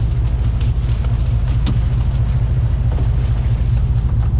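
Engines of a 61-foot custom Carolina sportfishing boat running steadily under way, a loud constant low rumble, with wind and rushing water over it.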